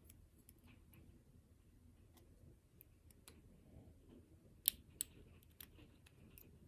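Faint, scattered clicks and taps of small metal lock parts (pins, spools and springs from a Goal P cylinder) being handled during disassembly. Two sharper clicks come about two thirds of the way through.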